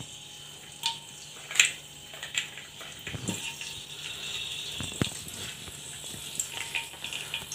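A handful of light, scattered clicks and knocks: whole spices dropping into an aluminium pressure cooker and a small steel bowl tapping against it, over a faint background hiss.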